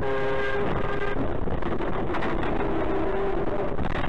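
Steady road and engine noise in a vehicle cab, with a horn blast lasting about a second at the start as a car cuts in close. A lower steady tone sounds again about two and a half seconds in.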